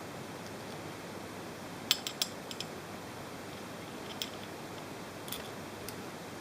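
Small metal tools clicking and clinking against the metal parts of a stripped CNC spindle motor: a quick run of clicks about two seconds in, then a few single clicks, over a steady background hiss.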